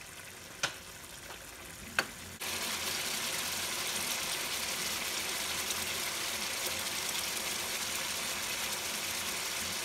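Two sharp knocks, then about two and a half seconds in a steady sizzling hiss starts abruptly and carries on: gushtaba meatballs cooking in tomato-onion gravy in an open wok.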